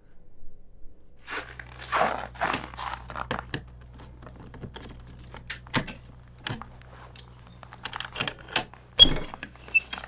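Keys jangling and light metal clicks as a cargo trailer's door lock and latch are worked, with a few short scraping noises after a second or so and a sharp metallic clack about nine seconds in.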